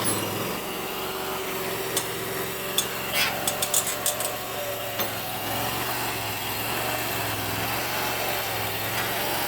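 Small backhoe's engine running steadily while digging, with a quick run of sharp metallic clanks about two to four seconds in.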